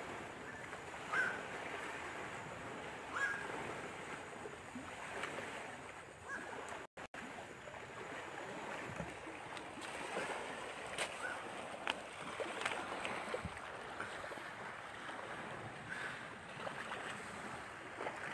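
Steady wash of lake waves and wind, with short high chirps every couple of seconds. The sound cuts out for a moment about seven seconds in.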